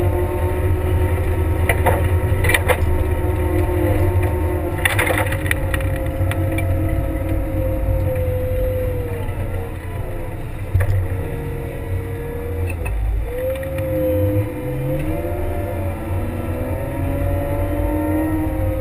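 Kramer 380 compact wheel loader's diesel engine running under load as it pushes snow with its V-plow, the engine pitch rising and falling with the throttle. A few clunks in the first five seconds.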